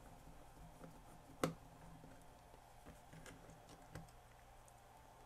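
Faint clicks and taps of a screwdriver working screws out of a metal cassette-deck chassis, with one sharper click about one and a half seconds in.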